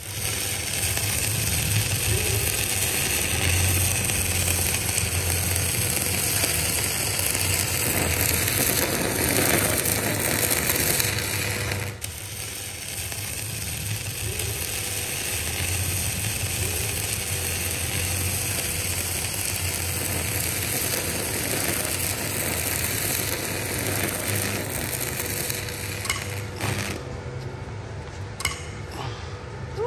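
Stick (MMA) arc welding with a JLD MMA200 inverter welder: the steady crackle and hiss of the electrode arc, a little quieter after about twelve seconds.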